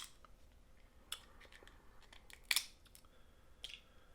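A few short, sharp cracks of snow crab leg shell being opened, the loudest about two and a half seconds in, with quiet stretches between them.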